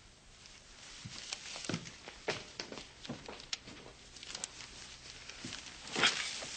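A broadsheet newspaper rustling as it is handled and its pages are shifted, with light knocks that may be footsteps. A louder rustle comes near the end.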